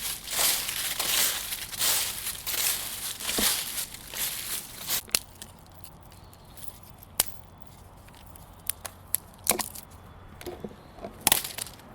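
A run of rough crunching noises for about five seconds, then a few separate sharp clicks and knocks.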